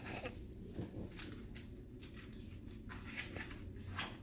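A page of a large picture book being turned and the book handled: a series of short paper rustles and soft taps.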